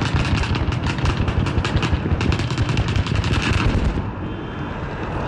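A rapid, irregular string of sharp cracks and bangs from the final display downrange, several a second. It stops suddenly about four seconds in.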